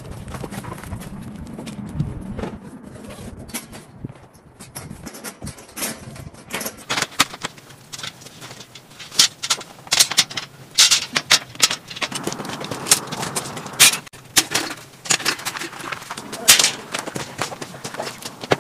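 Camping gear being handled and set down on a gravel tent floor, with footsteps crunching on the gravel. It begins as a soft rustle, then from about a third of the way in becomes a busy run of sharp knocks and clatters.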